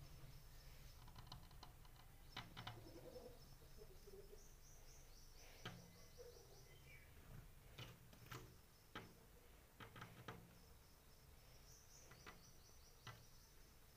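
Faint small-bird chirps and short trills from outside, repeated a few times, with scattered light clicks and taps.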